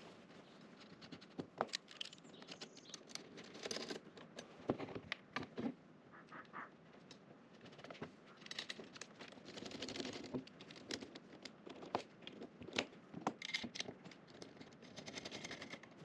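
Irregular small clicks, taps and rattles of the Aufero Laser 2's aluminium frame rails, brackets and screws being handled and fitted together during assembly.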